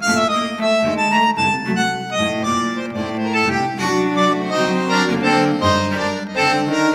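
Background music: a melody of held notes moving over sustained lower notes and a bass line.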